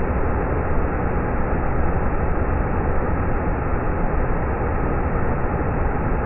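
Cascading waterfall pouring over wide rock ledges: a steady, even rush of water.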